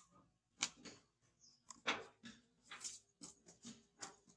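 Light clicks and taps of a plastic feeding bottle and its caps being handled, about half a dozen, spaced irregularly.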